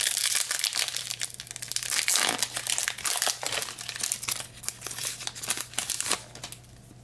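Foil wrapper of a 2021 Bowman Hobby baseball card pack crinkling and tearing as it is ripped open and handled, a dense, irregular crackle that stops about six seconds in.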